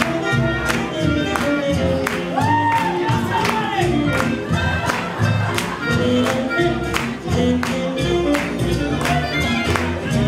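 Live swing band playing a swing tune with a woman singing, the drums keeping a steady, even beat.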